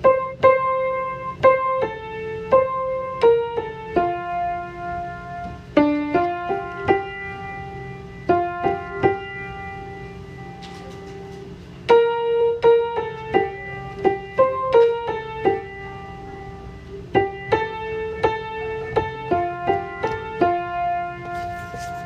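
Piano music: a slow melody of single struck notes and short phrases, each note ringing and fading, with a quieter stretch of held notes around the middle.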